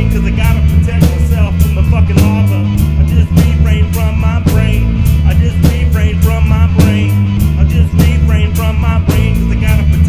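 Two-piece rock band playing live: semi-hollow electric guitar over a drum kit keeping a steady beat with cymbal hits.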